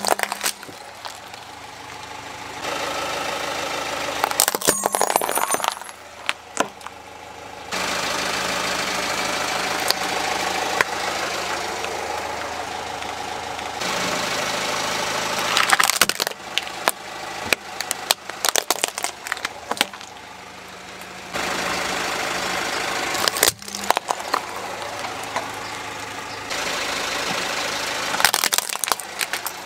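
A car engine idling while its tyre rolls over plastic toy vehicles, crushing them with clusters of sharp cracks and snaps about five times. The steady engine hum shifts abruptly in level between crushes.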